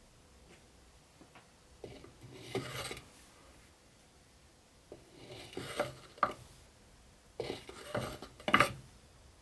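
Metal spoon scooping powder-coating powder from a plastic bag and tipping it into a plastic cup: bag crinkling and the spoon scraping and tapping against the plastic, in three short spells with a few sharp clicks.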